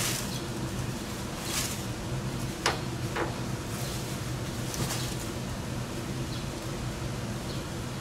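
Steady low hum with a few short scrapes and a click as a hex key is worked in an air conditioner outdoor unit's service valve, closing the valve to pump the refrigerant down.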